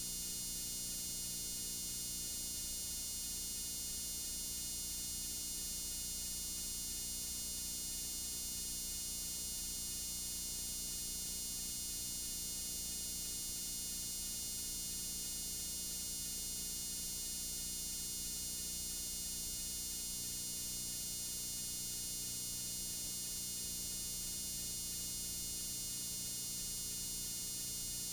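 Steady static hiss with an electrical buzz and low hum underneath, the playback noise of a blank stretch of videotape. It does not change throughout.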